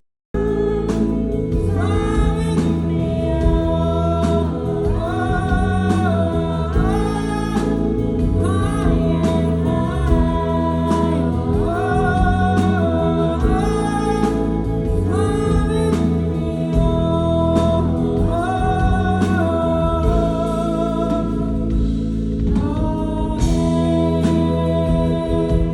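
Live rock band playing a slow song, a male lead voice singing long phrases that glide up and hold over the band's steady chords. The sound drops out completely for a moment right at the start.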